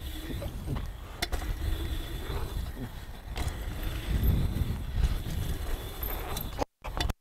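Mountain bike tyres rolling and rumbling over a dirt jump trail, with a couple of sharp knocks from the bike along the way. The sound cuts out for a moment near the end.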